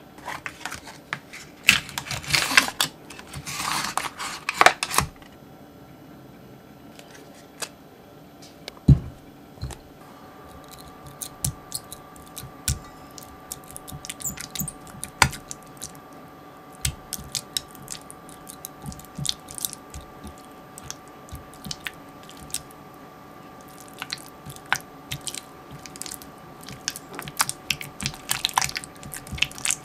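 Cream cheese being mashed and stirred with a silicone-coated wire whisk in a glass Pyrex measuring jug: irregular soft, squishy clicks and taps of the whisk working the cheese against the glass. Near the start there are a few seconds of crinkly rustling, and a single thump comes about nine seconds in; a faint steady hum sits underneath from about ten seconds on.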